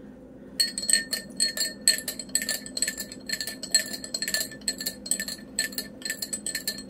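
Metal teaspoon stirring sugar into a tall drinking glass of hot tea, clinking against the glass about three or four times a second with a bright ringing tone. The stirring starts about half a second in.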